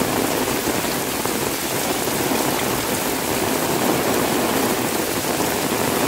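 Heavy tropical rain falling steadily, with drops drumming on an umbrella held overhead and splashing on the wet ground.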